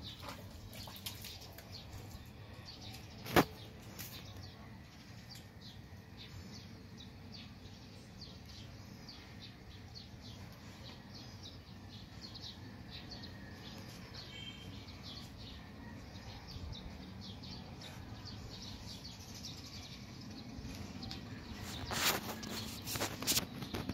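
Quiet outdoor background with scattered faint ticks and a few short chirps, and one sharp click about three seconds in. Near the end come rustling and knocking from the phone being handled.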